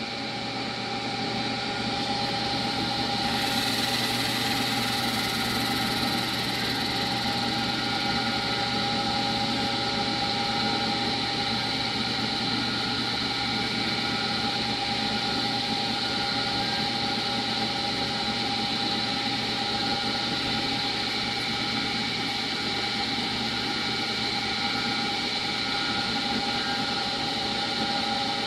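CNC milling machine running a turning cycle: the spindle spins an aluminum pulley while a lathe tool bit clamped in the vise cuts a shallow arc across its rim, the first of two passes to crown it. A steady mechanical whine with several held tones, growing slightly louder about two seconds in.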